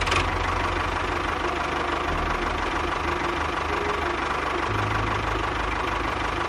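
Small motor of a homemade model tractor running steadily with a continuous rattling clatter and low hum.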